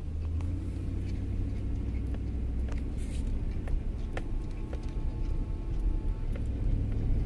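Motor vehicle driving: a steady low engine and road rumble that comes up at the start, with scattered light clicks and rattles.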